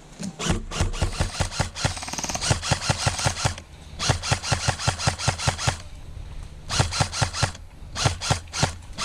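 Airsoft gun firing in five rapid bursts, each a fast string of sharp shots, with short pauses between them.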